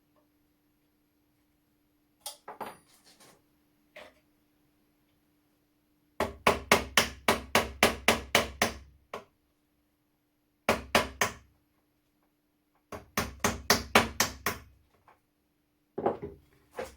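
Hammer tapping a punch to drive out a stuck part of a rusty flintlock shotgun, in quick runs of sharp metal strikes at about four a second with pauses between, the longest run about three seconds.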